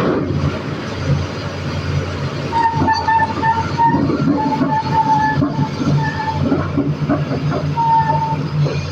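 Excavator running with a steady low diesel hum. From about two and a half seconds in, a high squealing tone comes and goes in several irregular stretches.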